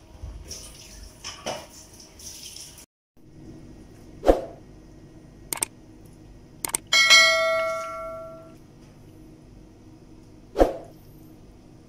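Utensil clatter in a wok, then a thump, two sharp clicks and a bell ding that rings for about a second and a half, the sound effect of a subscribe-button animation. Another thump comes near the end.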